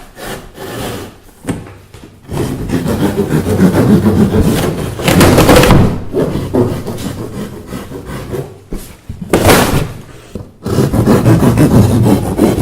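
Large cardboard box being torn and forced open by hand, rough ripping and scraping in several long stretches with a short burst between them.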